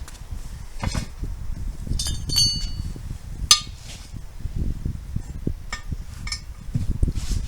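Metal tools clinking and knocking against a car wheel as a tyre is worked on and off the rim by hand. There are scattered strikes, a couple of them ringing briefly, and the sharpest knock comes about halfway through.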